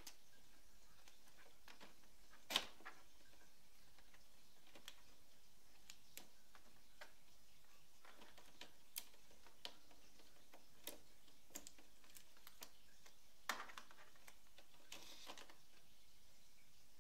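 Scattered light clicks and knocks of plastic from the Epson Stylus Photo PX720WD printer's paper cassette being handled and pulled out, over a faint steady hiss. The loudest is a sharp knock about two and a half seconds in, with another about thirteen and a half seconds in.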